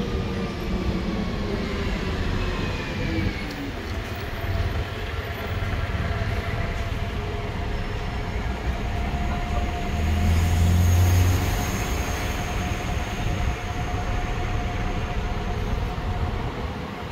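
City street traffic dominated by a heavy vehicle close by: its motor whine falls in pitch over the first few seconds as it slows, then holds a steady whine with a low rumble swelling briefly about two-thirds of the way through.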